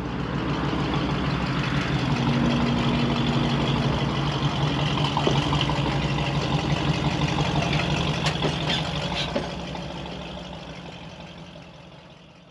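An engine idling steadily, fading out over the last few seconds.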